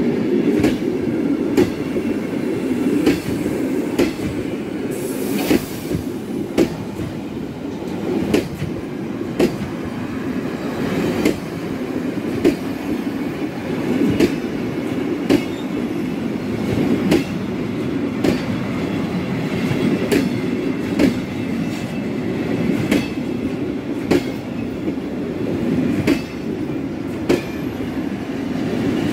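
Empty flat container wagons of a freight train rolling past at steady speed: a continuous rumble, with the wheels clacking over rail joints roughly once a second.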